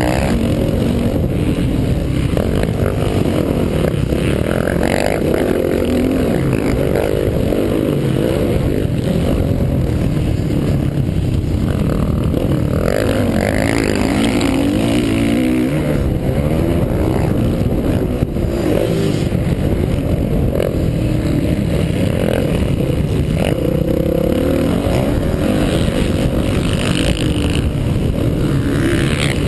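Dirt bike engine, heard close up from the rider's own bike, running loud and revving up and down as it is ridden hard around a motocross track, its pitch rising and falling with the throttle and gear changes.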